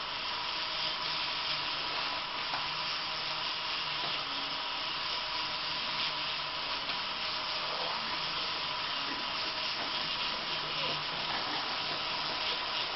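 Small electric motors of LEGO trains whirring steadily, with plastic wheels running on plastic track and a few faint clicks, over a steady hiss.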